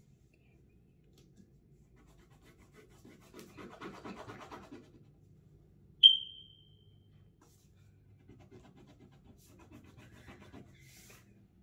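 Crayon scratching on paper as a drawing is coloured in, in short stretches. About six seconds in, a single short high-pitched electronic beep that fades quickly is the loudest sound.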